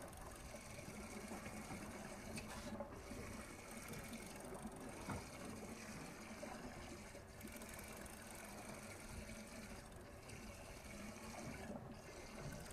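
Water sloshing and lapping against the hull of a small fiberglass boat, a steady wash with a faint low hum underneath.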